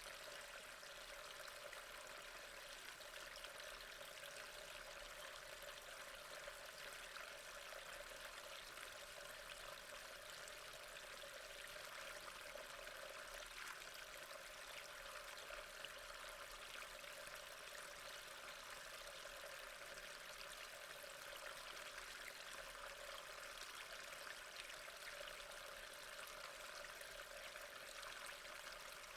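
Waterfall: a faint, steady rush of falling water, unbroken throughout.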